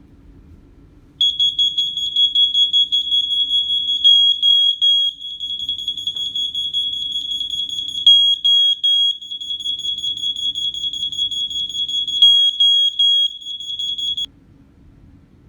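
WiFi interlinked smoke detector sounding its alarm in a test: a loud, shrill electronic tone that pulses rapidly. It starts about a second in and cuts off suddenly near the end. Groups of three louder beeps come about every four seconds.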